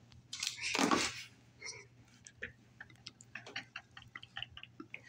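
A short breathy laugh about a second in, then a run of light, irregular clicks, several a second, as a knife is handled and worked out of a pocket.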